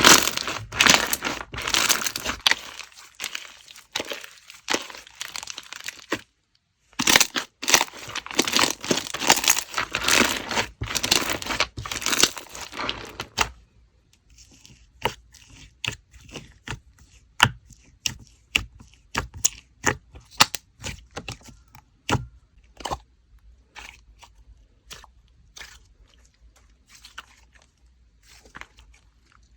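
Watermelon slime being worked by hand, with dense crackling and crunching that breaks off briefly about six seconds in, then thins out about halfway through into scattered clicks and pops.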